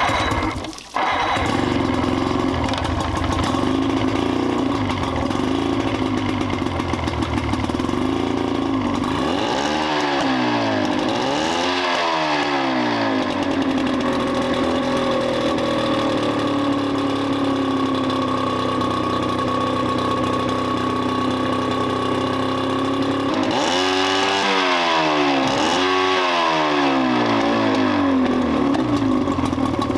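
Small outboard motor starting about a second in and then running, its speed rising and falling a couple of times about a third of the way through and again near the end, with a steady idle in between. The idle is set too low and the engine is not running quite right.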